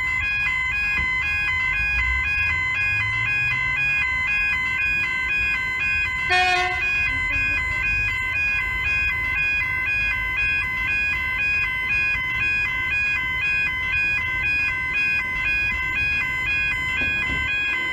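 Level crossing warning bells ringing continuously as a steady, pulsing electronic tone, signalling an approaching train. A road vehicle's engine note rises as it pulls away a couple of seconds in.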